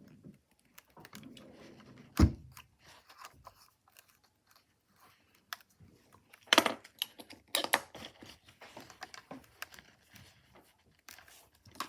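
Hands working at a small plastic portable transistor radio, trying to work a part loose: irregular clicks, scrapes and handling noises, with a sharp knock about two seconds in and a burst of clattering clicks around six to eight seconds in.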